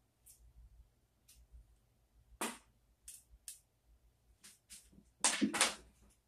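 A few sharp light clicks, then a short rattling clatter near the end: a pair of dice and plastic poker chips knocking together and against a dealer's stick as the dice are pushed across a felt craps layout.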